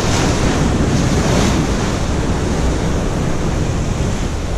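Ocean surf washing steadily, with wind buffeting the microphone.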